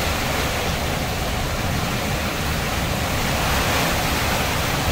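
Hurricane winds and heavy rain: a steady roar of noise, with wind buffeting the microphone as a fluttering rumble underneath.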